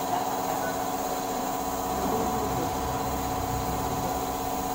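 A machine running with a steady hum made of several fixed tones. A deeper rumble joins it about a second and a half in.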